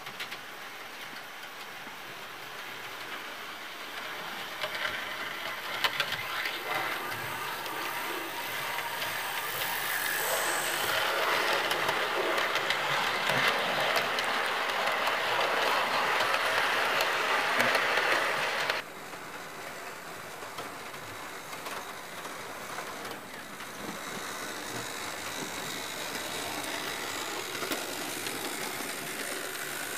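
OO scale model train running on the layout track: a steady electric motor hum and wheel noise on the rails that grows louder as the train nears. About two-thirds of the way through it cuts off suddenly, and a quieter model locomotive run follows.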